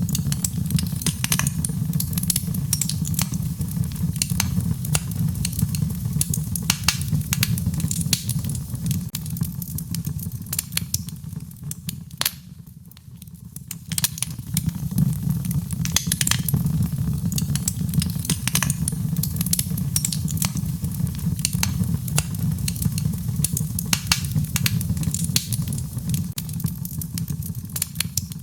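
Wood fire crackling, with frequent sharp pops and snaps over a steady low rumble of the flames. The crackling thins out and drops briefly about halfway through, then picks up again.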